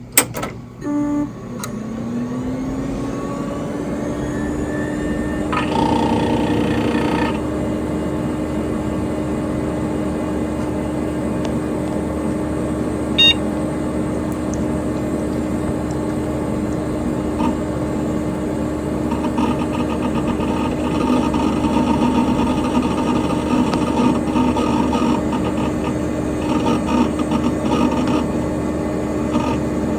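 Dell Dimension XPS P100c desktop PC starting up: a click, then the hard drive spinning up with a rising whine that settles into a steady hum over the cooling fan's noise. Later, irregular light ticking from the hard drive seeking.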